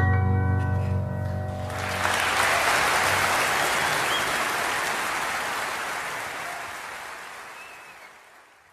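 Piano music ends on a held chord, then an audience applauds from about two seconds in, the applause fading away near the end.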